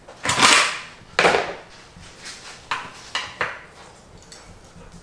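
A few short rustling and knocking handling noises, two stronger ones in the first second and a half and then several weaker ones.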